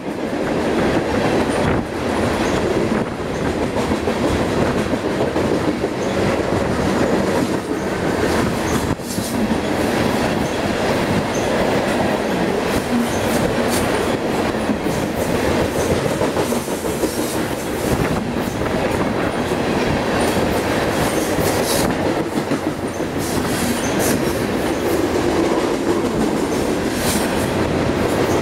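Freight train of open-top coal cars rolling past close by: a steady rumble of steel wheels on rail, with a sharp click-clack now and then as wheels cross rail joints.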